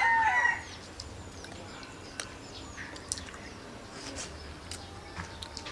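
A rooster's crow ends about half a second in. Then come faint high bird chirps and a few light clicks.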